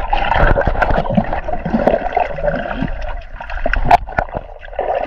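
Muffled water sloshing and bubbling around a camera held underwater, with a few sharp clicks and knocks scattered through it.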